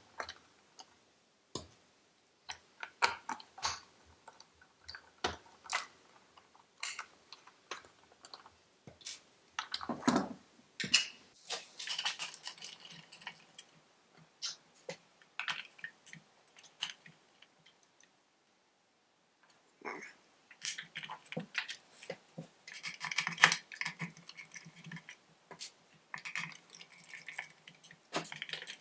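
Scattered clicks, taps and scrapes of plastic parts and small screws being handled as a Roomba's brush-module housing is unscrewed with a small screwdriver and its old brush motor taken out. There is a short quiet spell about two-thirds of the way through.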